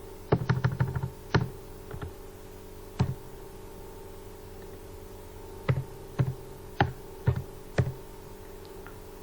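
Sharp clicks or taps: a quick run of them in the first second and a half, one alone a little later, then five spaced about half a second apart, over a steady low electrical hum.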